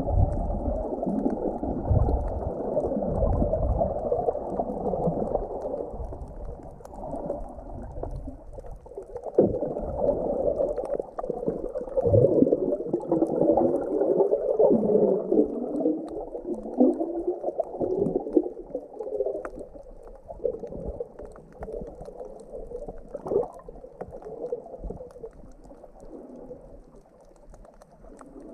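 Muffled underwater sound from a submerged camera: water sloshing and gurgling around it, dull, with a warbling rise and fall in pitch and a few low thumps near the start.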